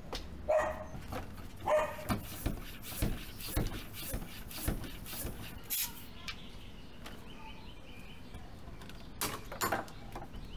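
A dog barks twice in the first two seconds, then come sharp clicks and knocks as bicycle wheels are handled, and a faint fast ticking that fits a rear hub's freewheel as the wheel turns.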